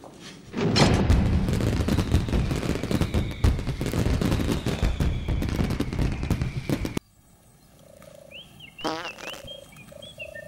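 A loud crackling rumble, dense with sharp cracks, starts about half a second in and stops abruptly at about seven seconds. It is followed by a few faint bird-like chirps.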